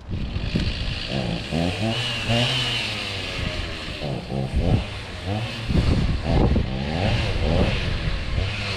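Two-stroke chainsaw engine revving up and down again and again, its pitch climbing and dropping every second or so.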